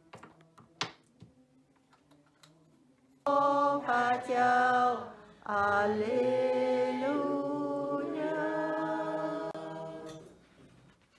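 Unaccompanied singing starts suddenly about three seconds in and goes on for about seven seconds, held notes stepping up and down. Before it there are only faint room sounds and a click.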